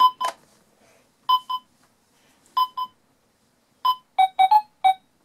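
Toy x-ray machine on a Bubble Guppies checkup center playset giving electronic beeps. Pairs of short high beeps come about every second and a quarter, and near the end a quick run of four lower beeps follows.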